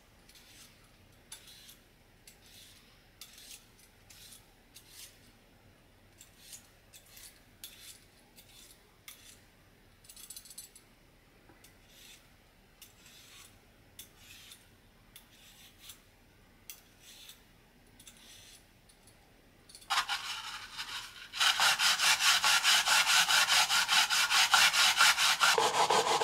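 A metal peeler scraping the skin off a yam in short faint strokes, about two a second. About twenty seconds in, the peeled yam is rubbed back and forth on a plastic grater: a much louder, fast, even run of scraping strokes.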